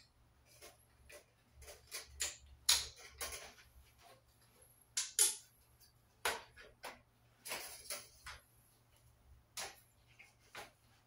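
Irregular clicks, taps and knocks of metal clothes-rack parts being handled and fitted together, with a few brief rustles; the loudest clicks come about three and five seconds in.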